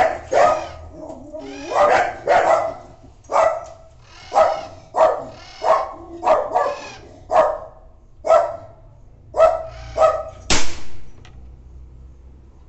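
Dog barking repeatedly, roughly one to two barks a second, for about ten seconds. A single sharp crack comes about ten and a half seconds in: a shot from the Gamo G-Magnum 1250 air rifle.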